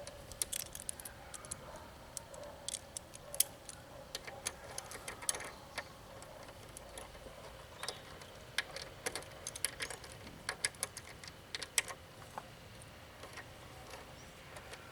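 Irregular light metallic clicks and ticks of a small screw and hand tools being handled while the screw is fitted on a motorcycle's front brake caliper. The clicking thins out and stops near the end.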